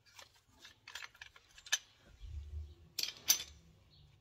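Metal clicks and knocks from a tool pressing a Mercedes-Benz GLC's rear brake caliper piston back into its bore. There is a short low rumble a little after two seconds in, and the two loudest sharp clicks come about three seconds in.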